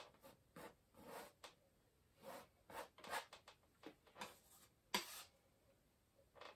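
Palette knife scraping and dragging oil paint across a canvas in a run of short, faint strokes, with one sharper tap about five seconds in.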